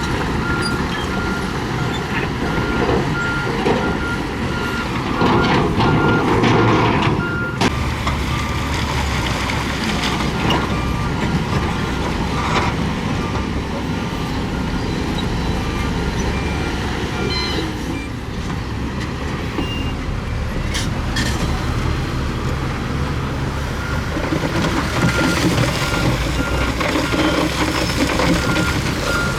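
Heavy diesel earthmoving machinery, a bulldozer and dump trucks, running steadily. A reverse alarm beeps over the engine for the first several seconds and again near the end, and a second, slightly lower-pitched beeper sounds for a few seconds in between. A couple of sharp metallic knocks stand out.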